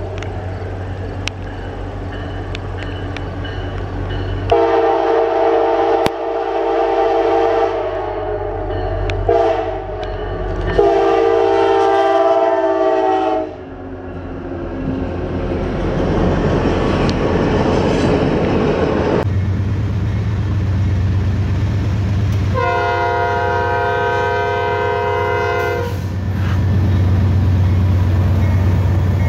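Diesel locomotive horns and passing trains: a CSX locomotive sounds its multi-note horn three times (long, short, long) as it approaches. After a change of scene about two-thirds of the way in, a Norfolk Southern freight's diesel locomotives rumble past, with another long horn blast.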